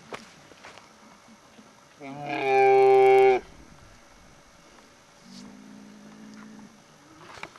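Bactrian camel calling: a loud, drawn-out moaning bellow about two seconds in, lasting over a second, then a quieter, lower call a few seconds later.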